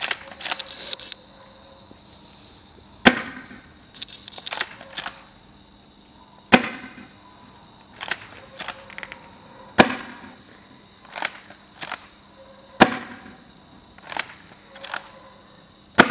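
Swiss Arms Shotgun MS spring-powered airsoft pump shotgun fired five times, about every three seconds, each shot a short sharp report. Quick clusters of clicks come between the shots as the pump is racked to re-cock the spring.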